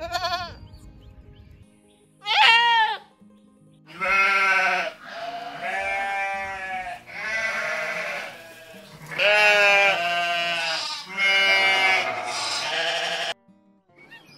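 Farm animal bleating: a short call at the start and another about two seconds in, then a run of five long bleats, each one to two seconds, over soft background music. The bleats stop about a second before the end.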